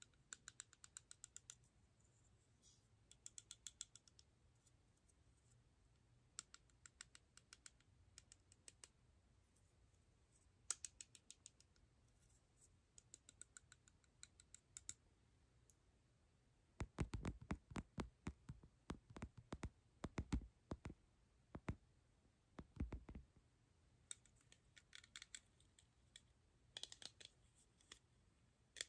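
Fingernails tapping and clicking on a clear plastic pill box, in quick runs of light, crisp clicks with short pauses between them. A stretch past the middle has louder, deeper knocks.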